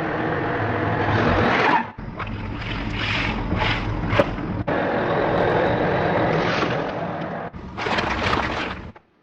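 A car rolling slowly over objects: engine and tyre noise with scattered crunching and crackling as things are crushed under the wheels. Several short clips are cut together, so the sound changes abruptly a few times.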